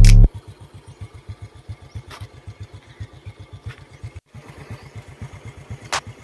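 A small engine running faintly at low speed, an even low putter of about eight beats a second, with a few soft clicks. Loud background music cuts off just after the start.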